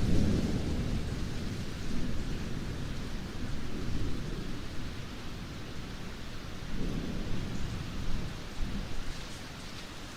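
Steady rainfall with low rolling thunder. The thunder is loudest at the start and dies away, then swells again more softly a few times.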